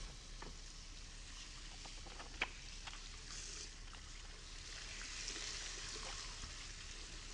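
Faint steady hiss with a few scattered small clicks and rustles, and one sharper click about two and a half seconds in.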